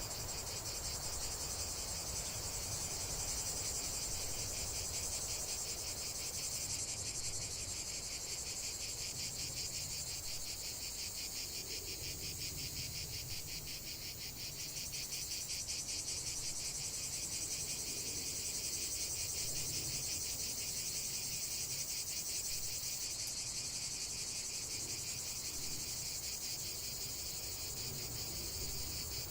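Insects chirping steadily in a dense, fast-pulsing chorus, with no break.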